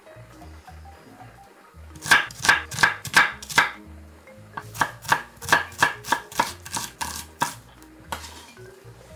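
Chef's knife chopping an onion on an end-grain wooden cutting board: a run of quick, even strikes about five a second, a short pause, then a second, longer run. Soft background music underneath.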